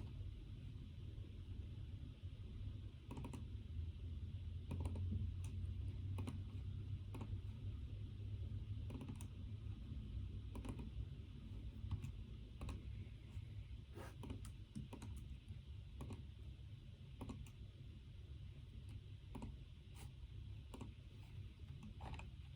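Typing on a computer keyboard: irregular key clicks, several a second with short pauses, over a steady low hum.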